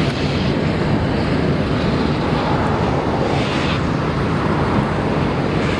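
A train rolling past, a steady noise with a strong low end and no breaks, with wind on the microphone.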